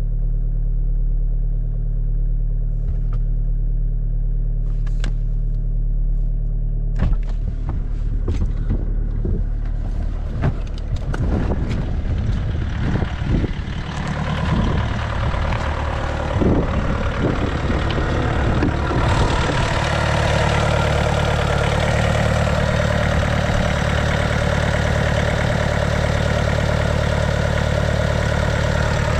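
Volkswagen Golf VII's 1.6 TDI four-cylinder diesel idling after a cold start at −8 °C, heard first from inside the cabin, then from outside with the bonnet open, where it sounds louder and brighter from about halfway on. Clicks and knocks come in a run from about a quarter to half of the way through.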